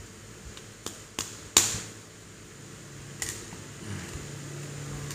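Hard plastic Play-Doh molds and tools clicking and clattering against the table as they are handled and set down: a few sharp clicks, the loudest about a second and a half in. A low steady hum comes in about halfway through.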